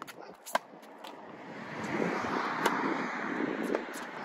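Tennis ball being struck by a racket and bouncing on a hard court: a few sharp pops, the loudest just after half a second in and near the middle, over a rushing noise that swells from about a second and a half in.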